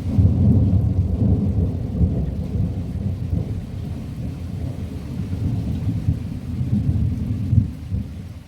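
Rolling thunder rumbling low and loud, easing in the middle and swelling again about seven seconds in before it dies down at the end, with rain falling.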